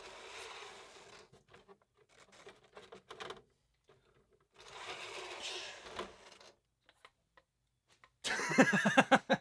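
Pro SC10 short-course truck's Reedy 3300kV brushless motor and drivetrain whirring on the bench under throttle, in two short bursts of about one and a half to two seconds each, one at the start and one about halfway through.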